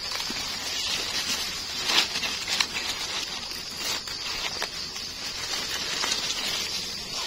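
Dry leaf litter and grass rustling and crackling in irregular bursts as gloved hands dig around and pick termite mushrooms, over a steady high-pitched drone.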